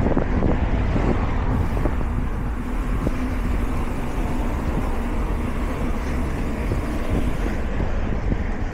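Steady wind rumble on a body-worn action camera's microphone while riding a mountain bike, with no sharp events.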